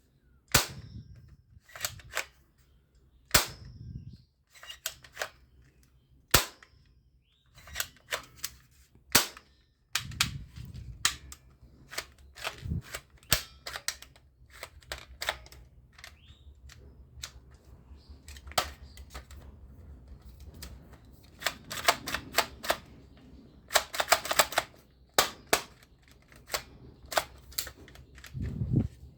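Plastic toy guns being handled and worked: irregular sharp clicks and snaps, with a quick run of rapid clicks near the end.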